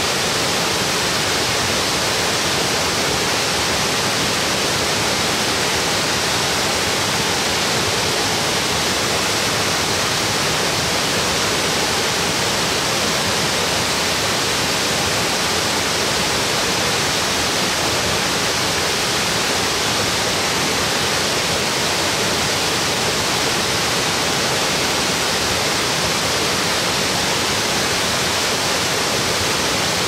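Ohko Falls, an 88-metre waterfall, pouring down a rock face, heard from directly below: a loud, steady rush of falling water.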